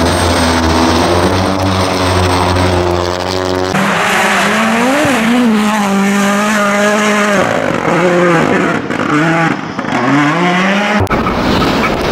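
Rally1 cars with 1.6-litre turbocharged four-cylinder engines on a snow stage. First one engine holds a steady note. After a cut, another car's engine rises and falls in pitch several times as it is driven hard through the corner.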